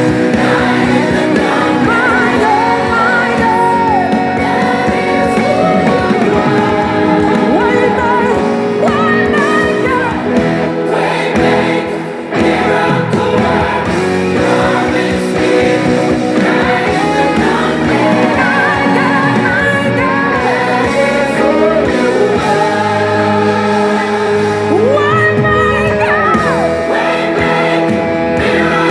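Gospel worship song recording playing: a lead singer with a band repeating the chorus.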